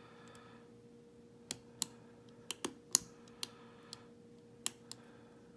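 Sharp metal clicks of a pick wire and tensioner working inside a Belfry four-lever padlock, about nine irregular clicks over a few seconds as the pick catches on the levers.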